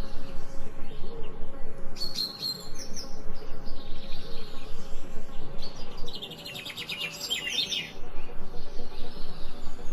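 Songbirds chirping and singing in several short bursts of high, quick notes, over a steady low background.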